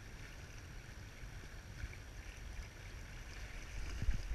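Wind rumbling on the microphone over small waves lapping at a rocky lake shore, with a few low knocks near the end.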